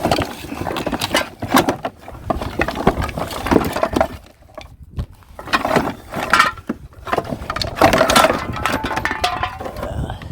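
Rummaging through discarded junk by hand: irregular clattering, knocks and clinks as plastic and metal items are shifted and pulled about to get at the wires.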